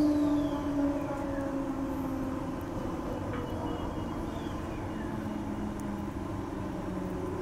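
Transperth A-series electric multiple unit heard from inside the carriage as it slows: the traction motors whine in several tones that slowly fall in pitch, over a steady rumble of wheels on the track, as the train brakes for a station stop.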